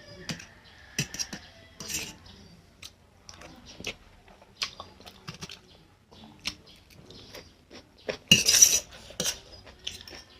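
Eating sounds from a plate of Maggi instant noodles with fried egg: a utensil clicking and scraping against the plate, with mouth sounds of eating, in scattered short strokes. The loudest is one half-second noise about eight seconds in.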